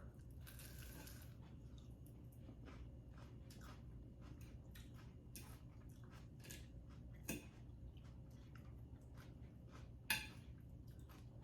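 Quiet chewing and mouth sounds of people eating: soft crunches and small clicks scattered throughout, with a louder click near the end.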